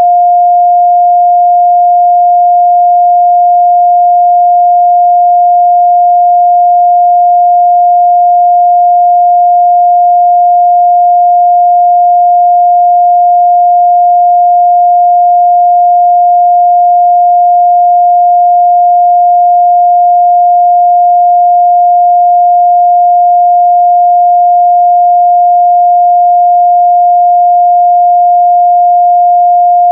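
A pure 706 Hz sine-wave test tone, held steady and unchanging at one pitch, used to check a speaker's or headphones' midrange response.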